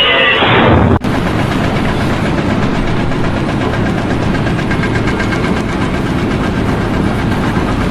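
An engine running steadily with a fast, even pulse, starting abruptly about a second in where a louder, brighter sound cuts off.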